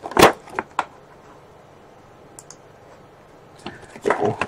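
Cardboard toy box being handled and opened: a sharp knock near the start and a couple of lighter taps, a quiet stretch, then rattling and rustling of the box near the end.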